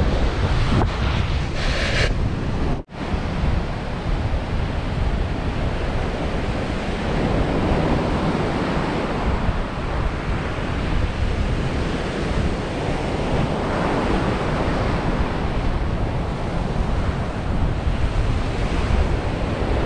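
Ocean surf breaking on a sandy beach, a steady rush of waves, with wind buffeting the microphone. The sound drops out for an instant about three seconds in.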